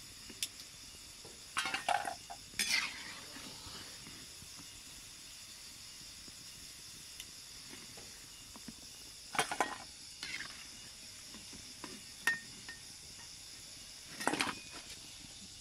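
Oil sizzling steadily in an iron kadai as pieces of gaja deep-fry. A steel skimmer clinks and scrapes against the kadai and a steel bowl in a few short clusters as the fried pieces are lifted out.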